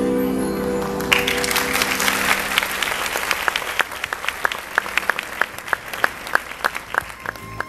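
An audience claps after a song: the last held chord dies away over the first couple of seconds, and applause starts about a second in. The clapping thins out into scattered single claps near the end.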